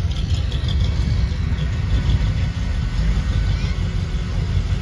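A car engine running with a steady, deep low rumble.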